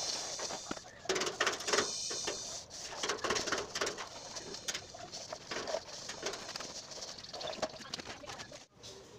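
Aluminum straightedge dragged over fresh cement plaster on a wall: rough, uneven scraping strokes with gritty clicks, loudest in the first few seconds.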